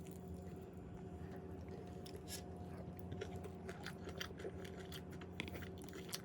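A person chewing and biting into food close to the microphone, with irregular short crunchy clicks starting about two seconds in, over a steady low hum.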